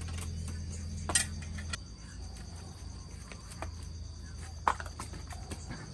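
Insects trilling steadily at a high pitch, with a few sharp clicks or knocks, the loudest twice. A low hum underneath cuts off about two seconds in.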